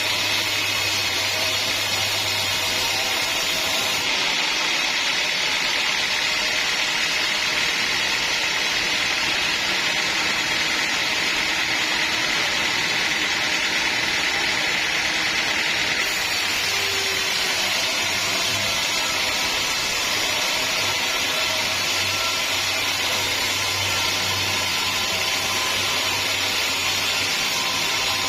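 Sawmill machinery running steadily, a saw working through a teak log: a constant high hiss with a low hum underneath that fades out for a stretch mid-way and returns.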